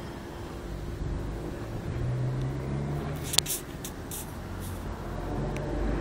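Heavy truck's diesel engine running at a distance with a steady low rumble. A sharp click about halfway through is followed by a few short hisses.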